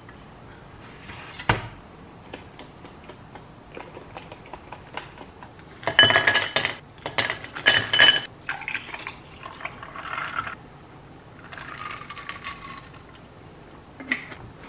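Ceramic plates and tableware clinking and knocking on a kitchen counter: a sharp knock about a second and a half in, a louder run of ringing clinks between about six and eight seconds in, and softer handling sounds after.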